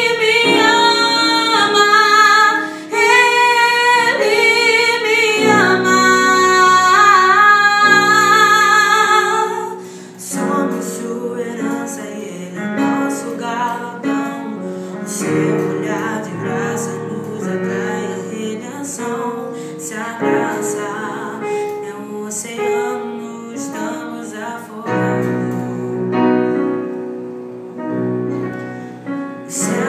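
A boy sings a slow song with a wavering vibrato over keyboard chords for about ten seconds. The voice then stops and the keyboard carries on alone, playing an instrumental passage of chords and melody.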